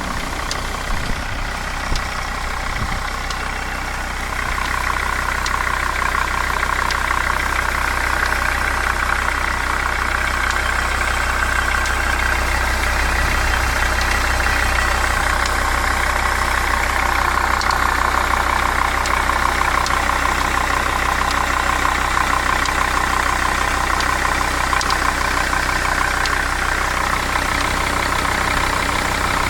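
2002 Jeep Grand Cherokee WJ's 2.7-litre five-cylinder common-rail diesel running at idle with a fast, steady ticking, an engine tick of unknown cause. It gets a little louder about four seconds in.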